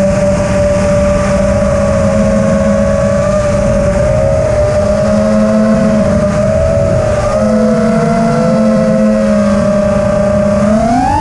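FPV quadcopter's brushless motors and propellers whining at a fairly steady pitch that wavers gently with throttle, climbing sharply near the end as the throttle is punched; picked up by the camera mounted on the drone.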